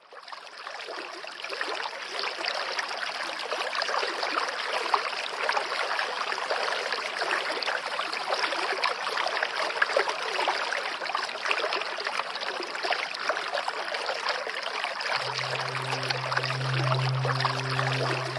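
Steady running water, like a flowing stream, fading in at the start. A sustained low musical note comes in about 15 seconds in.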